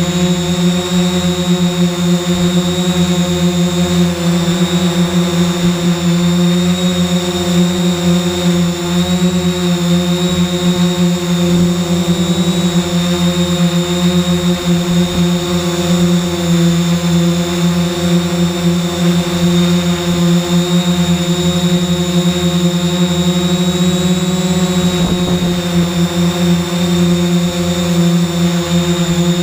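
3DR X8 octocopter's eight electric motors and propellers running at a steady hover, a loud whine that holds one pitch, heard from the camera mounted on the drone itself.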